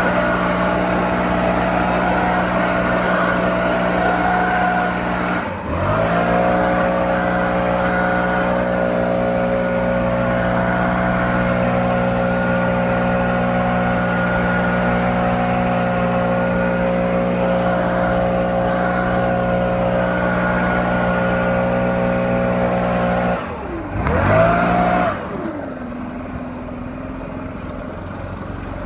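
Stihl BR700 two-stroke backpack leaf blower running at full throttle. The throttle is let off for a moment about five seconds in and comes straight back up. Near the end it is blipped once, then let down to idle.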